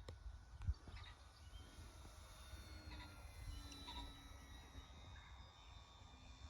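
Near silence: a low wind rumble on the microphone, with a few faint distant bird calls about one, three and four seconds in.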